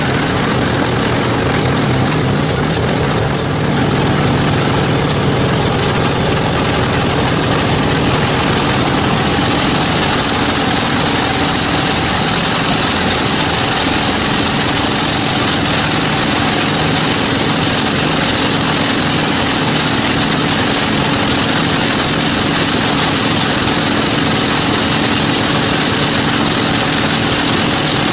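Sawmill machinery running with a loud, steady engine drone.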